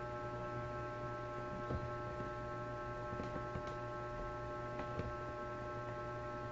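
Steady electrical hum with several constant overtones, and a few faint clicks scattered through it.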